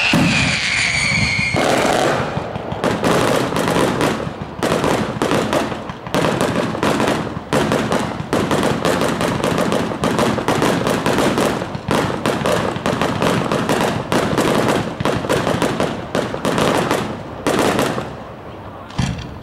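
Aerial fireworks bursting overhead: a falling whistle at the start, then a long, dense run of rapid pops and crackles that stops shortly before the end, with one last crack.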